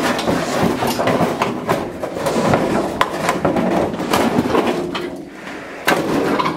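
Irregular clattering and knocking of metal as parts of a cast iron boiler are worked loose, continuing without a break.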